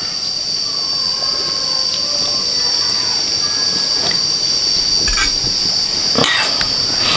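A steady, shrill, high-pitched drone throughout, with a couple of sharp clinks of chopsticks and a ladle against a steel bowl as noodles and broth are served near the end.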